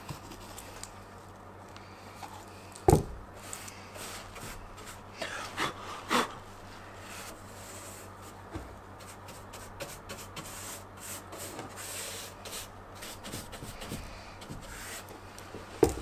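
Paintbrush rubbing linseed oil and turpentine into the bare wood of an old window frame's glazing rebate, faint repeated strokes, oiling the wood so it will not draw the oil out of the putty. A single sharp knock about three seconds in.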